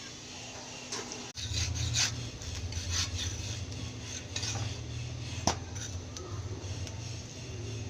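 Kitchen utensils scraping and clinking against cookware, with one sharp click about five and a half seconds in, over a low steady hum that starts after about a second.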